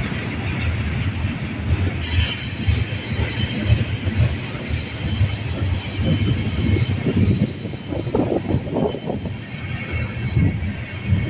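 Freight train cars rolling past with a continuous low rumble, and a thin high squeal from the wheels on the rails from about two seconds in.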